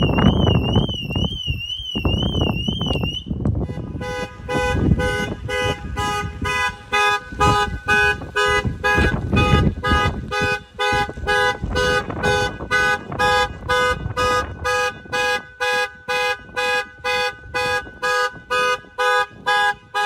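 A BMW SUV's alarm siren warbling rapidly for about three seconds over wind on the microphone, then cutting off. A Jeep's horn then honks in a steady rhythm of about two blasts a second: its car alarm going off.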